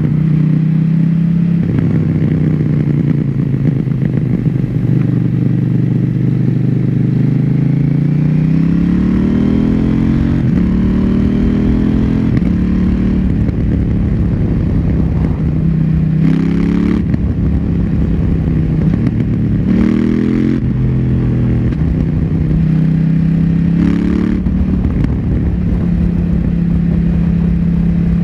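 KTM Duke 790's parallel-twin engine on its standard exhaust, heard while riding: running steadily at first, then revving up. In the second half there are three quick gear changes made with the quickshifter, each a brief sharp crack followed by a drop in revs, and the engine settles to a steady cruise near the end.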